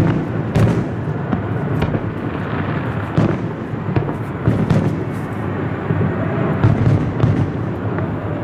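Aerial firework shells bursting in quick, irregular succession: sharp booms and cracks over a continuous rumble.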